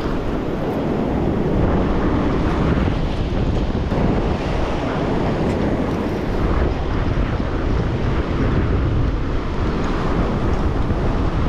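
Wind buffeting the microphone over the steady wash of ocean surf breaking on rocks.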